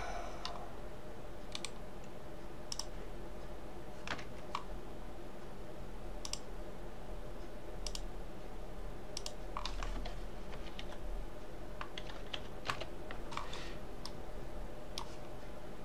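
Occasional clicks of a computer mouse and keyboard keys, spaced irregularly a second or more apart, over a steady low background hum.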